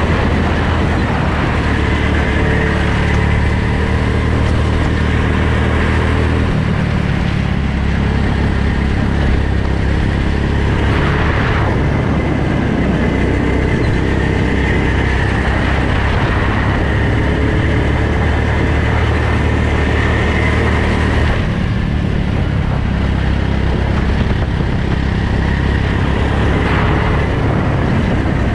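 Go-kart engine running continuously, recorded from a helmet-mounted camera. Its note changes about a quarter of the way in and again about three quarters of the way through.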